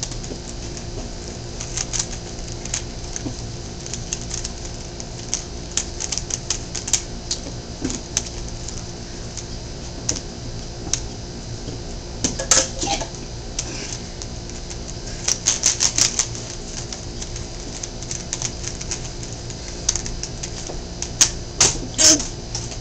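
Rubik's cube layers turned by hand: plastic clicking and clacking in irregular runs, with quicker flurries of turns now and then, over a steady low hum.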